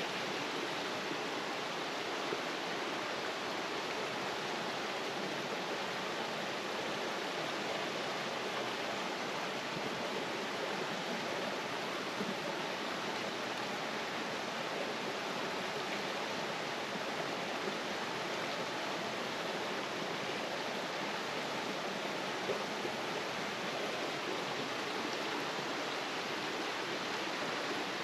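Small rocky forest stream running strongly over rocks and a little cascade, a steady rush of water.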